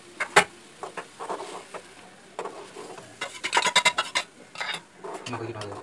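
Metal cooking utensils scraping and clinking against a steel pan while a thin masala sauce is stirred. There is a sharp clink about half a second in, and a quick flurry of scraping clinks around three to four seconds in.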